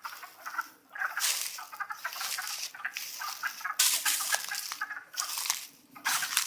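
Wood frog chorus: many frogs calling over one another in a dense, uneven chatter, with a few brief lulls.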